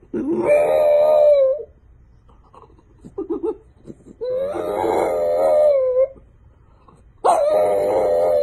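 French bulldog howling: three long drawn-out howls, each rising at the start and then held, with a short soft whine between the first two.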